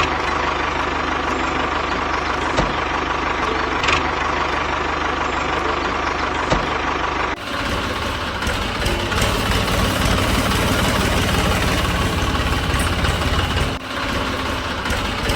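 Tractor engine running steadily with a low, knocking idle. The sound changes abruptly about halfway through and dips briefly near the end.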